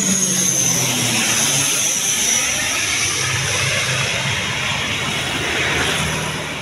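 CASA C-295 twin-turboprop transport (Pratt & Whitney PW127G engines) passing low overhead on landing approach and flying away: a loud high turbine whine slowly falling in pitch over the low drone of the propellers, easing off slightly near the end.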